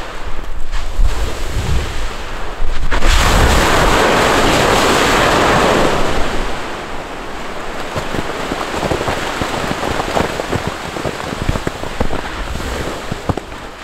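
Strombolian explosion from Etna's Voragine cinder cone: low gusty rumble, then, about three seconds in, a sudden loud rushing blast as gas, lava and ejecta jet from the vent. It eases after a few seconds into a rough rumble scattered with many sharp cracks.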